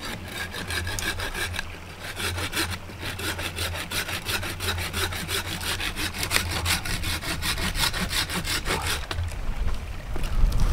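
Small orange-handled pruning saw cutting through a sapling's trunk near the ground, in quick, even back-and-forth strokes. There is a short break about two seconds in, and the strokes stop near the end.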